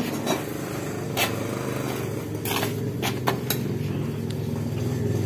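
Hand tools and metal parts clicking and knocking, several sharp clicks about half a second apart near the middle, during bench teardown of an Isuzu Panther manual transmission. A steady low machine hum runs underneath.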